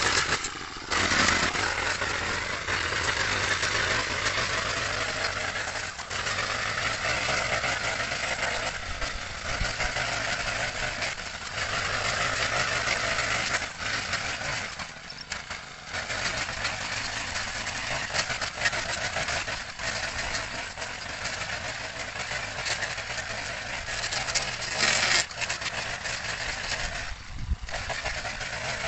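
Honda GX35 single-cylinder four-stroke brush-cutter engine running at cutting speed while the cutter swings through tall grass. Its sound dips briefly several times as the throttle is eased and opened again.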